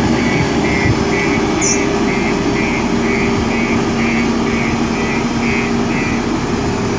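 Diesel engine of a JCB 3DX backhoe loader running steadily under work, with a high beeping alarm pulsing about twice a second that stops about a second before the end.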